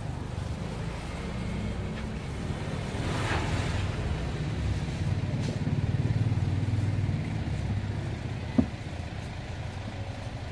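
Low rumble of a motor vehicle's engine passing on the street, swelling to its loudest about midway and then fading, with a brief rustle early on and a single sharp click near the end.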